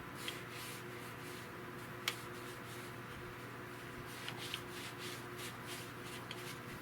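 Repeated short scraping or rubbing strokes, irregular, a few to a second, with one sharp click about two seconds in and a few lighter ticks midway.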